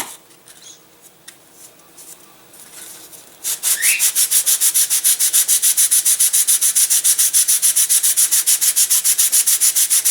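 Sandpaper rubbed on the balsa end of a model-aircraft flaperon in quick, even back-and-forth strokes, about eight a second, starting after a quieter stretch of a few seconds. Material is being sanded off so the flaperon has clearance and does not bind.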